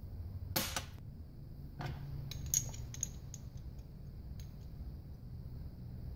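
Small steel Hydra-Matic valve-body parts clicking and scraping against each other as they are handled and fitted by hand: a short rattle about half a second in, a scrape near two seconds, a cluster of light clicks around two to three seconds, then a few isolated ticks, over a steady low hum.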